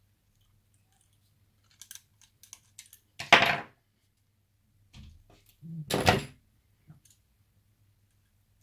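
Hand tools and small electrical parts handled on a wooden tabletop: a few light clicks, then two louder clattering knocks about three and six seconds in, with a faint low hum underneath.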